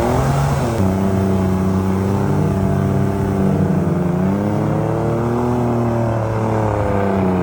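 Engine running under changing load, its pitch rising and falling gently, dipping about a second in and rising again after the middle.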